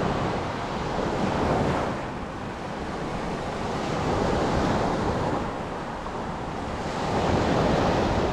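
Sea surf washing onto the shore, with wind buffeting the microphone. The surf swells about every three seconds.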